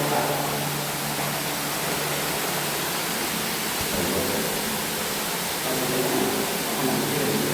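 Steady rushing hiss of flowing stream water, with faint voices underneath in places.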